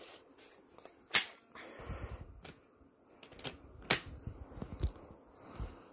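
Sharp plastic clicks and knocks from an airsoft machine gun being handled, a few separate clicks with the loudest about a second in, with low rumbling and rustling between them.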